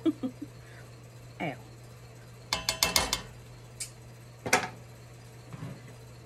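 Metal kitchen utensils clinking and clattering as they are picked through, in a quick run of ringing clinks about halfway through and one sharp clink a second and a half later, over a low steady hum.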